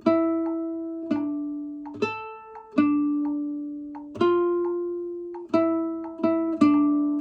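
1976 Kazuo Yairi CY 130 nylon-string classical guitar played solo: a slow melody of single plucked notes, each left to ring out, with the notes coming quicker near the end.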